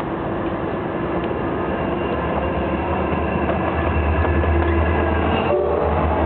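EMD SD40-2 diesel-electric locomotive with its 16-cylinder engine rumbling, growing louder as the freight train comes in. The pitch of its tones shifts about five and a half seconds in.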